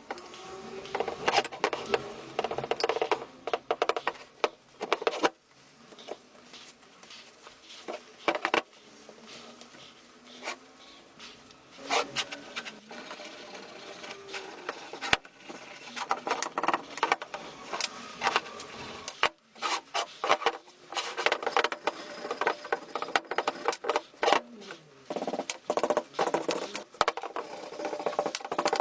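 Irregular clicks, knocks and rattles of hand work on vise parts, with faint squeaks.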